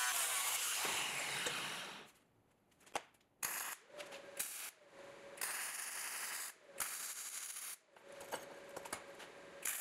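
An angle grinder grinds steel for about two seconds and winds down. After a short pause, a MIG welder crackles in several short bursts as it tacks a square steel tube leg onto a steel foot plate, with a faint steady hum around some of the bursts.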